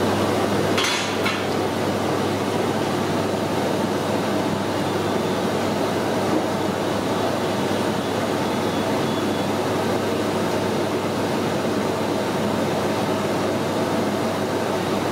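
Jalebis deep-frying in a large iron kadai of hot oil: a steady sizzling rush with a low hum underneath.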